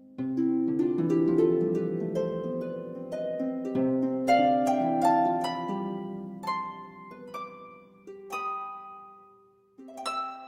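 Background instrumental music of quick plucked, harp-like notes in flowing runs. It thins out and fades nearly away near the end, then a new phrase begins.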